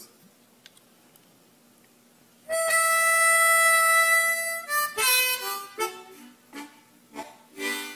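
Harmonica playing the blues: after a quiet start, one long held note about two and a half seconds in, then a run of shorter notes at changing pitches.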